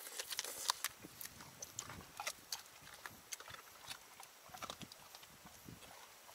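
German shorthaired pointer eating watermelon: wet, irregular chewing and crunching with clicks and smacks.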